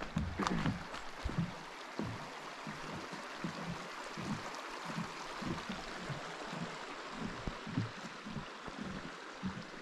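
Shallow mountain creek flowing over stones, a steady rush of water, with a few soft low thumps scattered through it.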